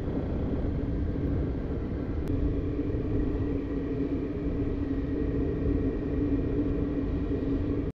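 Vehicle driving at a steady pace: a steady engine drone over low rumble, cutting off suddenly at the very end.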